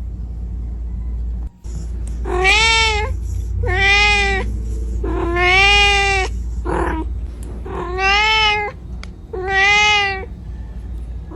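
A kitten meowing repeatedly, calling for its mother: about six high meows, each under a second and rising then falling in pitch, over a steady low hum.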